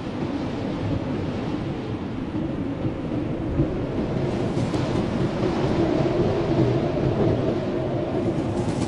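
Blizzard wind blowing as a steady deep rush, with a faint howling tone that swells in the second half.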